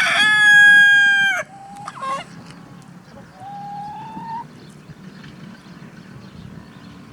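Leghorn rooster crowing loudly, the long held final note of the crow falling off and ending about a second and a half in. Softer calls from other chickens follow, one short call and then a longer rising one.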